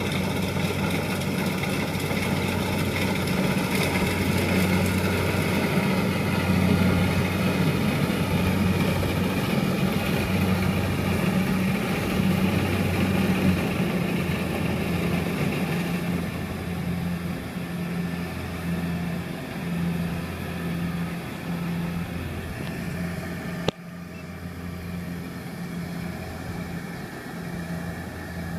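Kubota DC70 combine harvester's diesel engine running steadily as the machine crawls through a muddy paddy. It grows fainter in the second half as the harvester moves away, and there is a single sharp click about 24 s in.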